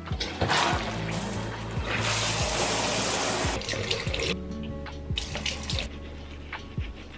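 Water running from a bathroom tap, loudest for about a second and a half a couple of seconds in, over soft background music.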